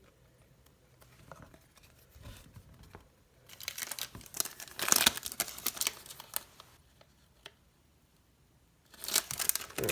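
A trading card pack wrapper being torn open and crinkled by hand, in a run of crackling about a third of the way in and another short burst near the end, with faint rustling of cards before it.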